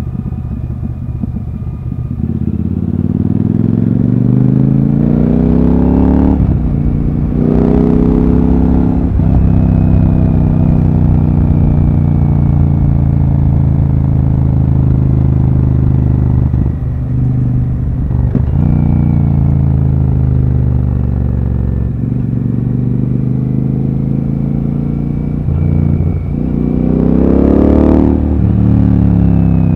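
Royal Enfield Super Meteor 650's parallel-twin engine accelerating through the gears while riding. The engine note climbs and drops back at each upshift, with three shifts close together in the first ten seconds. It then holds a steady cruise with a few more shifts, and climbs again near the end.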